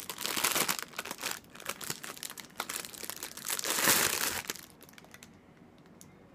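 Clear plastic wrapping crinkling and crackling as it is handled and pulled off a figurine, loudest about four seconds in, then stopping. A few faint clicks near the end.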